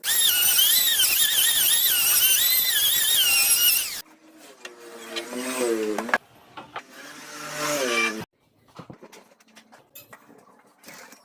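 A power tool running for about four seconds: a loud whine that wavers in pitch over a rushing noise, then cuts off. A quieter, lower wavering sound follows until about eight seconds in, then faint scattered clicks.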